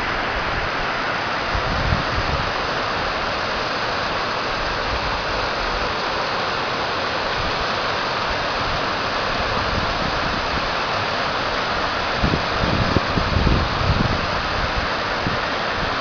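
Waterfall: a steady rush of falling water. There are a few low rumbles about three-quarters of the way through.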